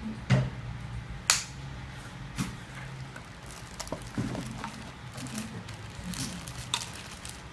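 Handling noise from unpacking a hair clipper: a scatter of sharp clicks and knocks of hard plastic parts and a moulded pulp packing tray, with plastic-bag crinkling near the end as the wrapped comb attachment is lifted out.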